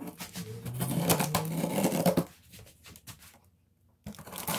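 A small plastic box cutter is drawn along the packing tape on a cardboard box seam, making a scratchy slicing rasp against the cardboard. It stops for a second or so just after the middle and starts again near the end.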